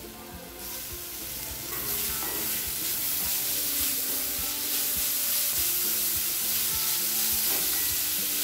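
Chopped capsicum and grated carrot sizzling in hot oil in a kadai while being stirred with a wooden spatula. The sizzle grows louder about two seconds in and then runs on steadily.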